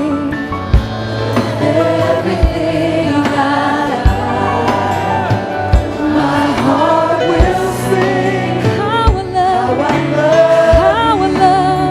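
Worship music in a gospel style: a choir and lead voice singing over sustained band chords, with a steady low drum hit about every second and a half to two seconds.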